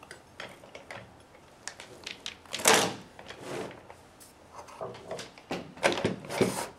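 Metal busway joint parts being handled and slid into place on the housing: scattered clicks and knocks, with two louder scraping slides, one about two and a half seconds in and one near the end.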